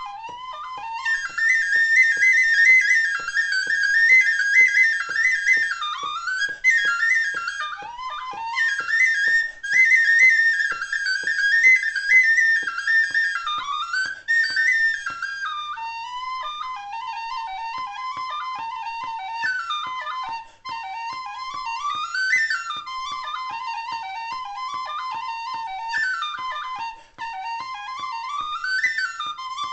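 Killarney brass tin whistle playing a fast, ornamented Irish reel, solo. The tune runs in the high octave for the first half, then drops to the low octave about halfway through.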